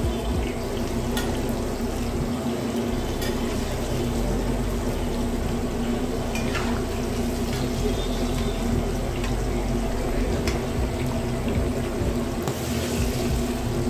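Hot oil bubbling and sizzling around a kadai full of batter-coated green chillies deep-frying into mirchi bajji, with a few clicks of a slotted metal ladle against the pan and a steady low hum beneath.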